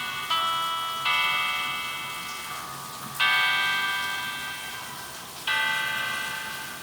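A slow, bell-like Nokia chime ringtone playing from a Samsung SGH-A157 flip phone's speaker: four chime chords, each struck and slowly fading, the last three about two seconds apart.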